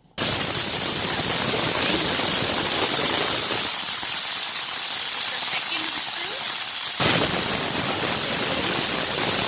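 Aluminium stovetop pressure cooker blowing its whistle: the weight valve lifts and vents steam in a loud, steady hiss that starts suddenly. This is the cooker at full pressure, one of the whistles counted to time the dal.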